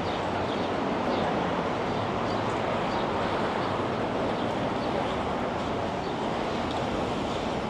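Steady rumble and hiss of a moving vehicle, with faint voices in the background.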